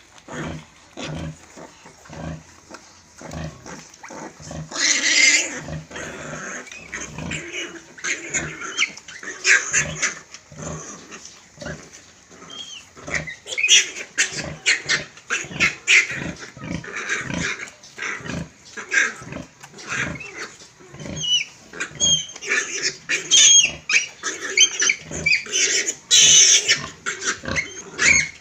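Pigs grunting in quick, repeated short calls, with a few loud squeals: one about five seconds in and one near the end.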